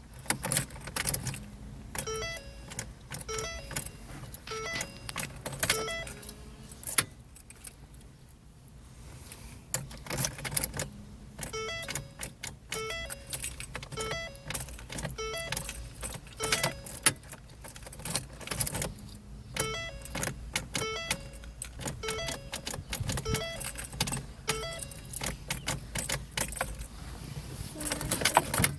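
Car keys jangling and clicking in a 2009 Ford Focus's ignition. The dashboard warning chime dings in runs of several evenly spaced tones, about two-thirds of a second apart, three times over. No engine cranks or runs, in keeping with the no-start fault that a faulty ignition switch caused and an ignition bypass button cured.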